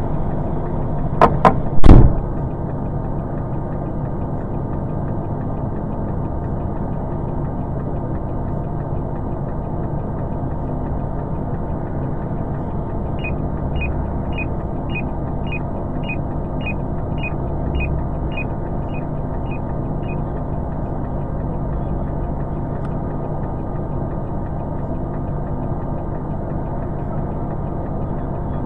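Truck engine idling steadily, heard from inside the cab, with a few loud knocks about two seconds in. Midway comes a run of regular ticks, about two a second, lasting some seven seconds.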